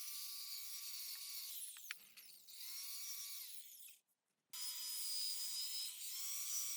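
A small high-speed power tool motor running with a steady whine and hiss. It spins down and back up a couple of times, and cuts out completely for half a second about four seconds in.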